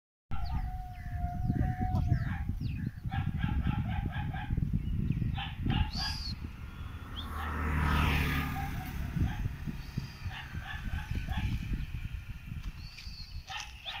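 Farm-animal calls, repeated short pitched calls in quick runs, with one longer held call near the start. A low rumble runs underneath, and a louder swell comes about eight seconds in.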